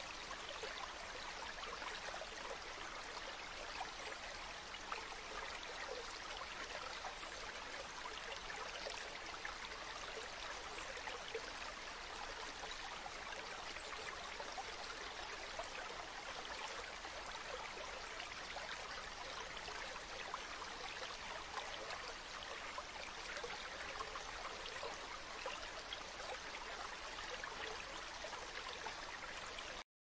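River water flowing, a steady, even rush with no change in strength.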